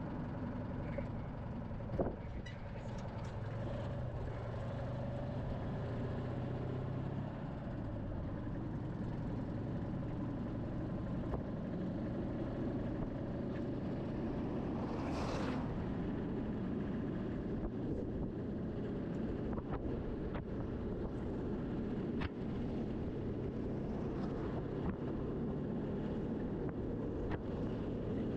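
Citroën car's engine and road noise while driving steadily, the engine note dropping about a quarter of the way in. About halfway through, an oncoming bus passes with a brief whoosh.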